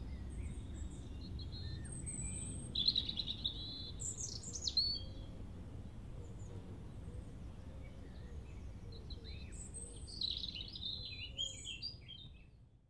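Small birds chirping and singing in short trills and calls over a low, steady background rumble, fading out near the end.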